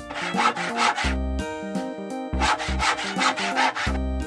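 Saw strokes, a quick back-and-forth rasp of several strokes a second, in two runs with a pause of about a second and a half between them, over background music.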